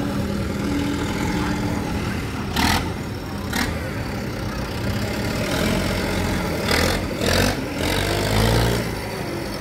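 Old tractor engine running as the tractor drives past, with a few sharp knocks along the way. The engine gets louder near the end as the tractor comes closest.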